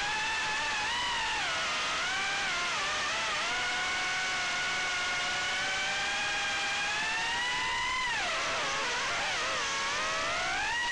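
BetaFPV HX115 micro quad's brushless motors and two-blade props running on a 4S pack, a steady whine whose pitch glides up and down with the throttle. It climbs to its highest about eight seconds in, drops sharply, then climbs again near the end.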